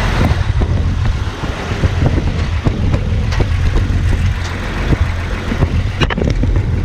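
Motor vehicle running: a steady low engine and road rumble with many small knocks and rattles, and a sharp break about six seconds in.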